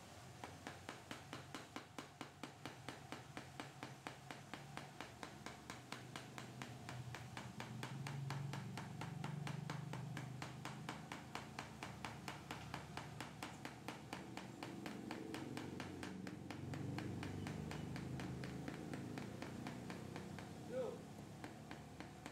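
Toyota Avanza electric in-tank fuel pump running out of the tank, spitting fuel from its outlet in a rapid, regular pulsing over a low motor hum that swells at times. The sound is faint.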